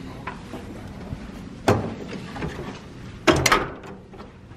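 Hotel room door and its lever handle: a sharp clunk nearly two seconds in, then a louder quick run of latch clicks and knocks about three and a half seconds in as the door is pulled shut.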